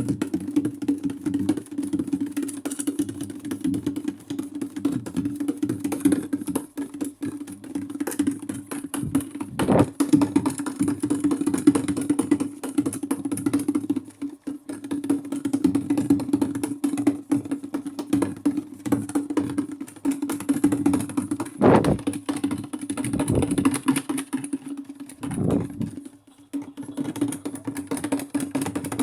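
Maytag top-load washing machine running on its delicate cycle: a steady motor hum overlaid with continuous rapid clicking and rattling, with a few louder knocks along the way.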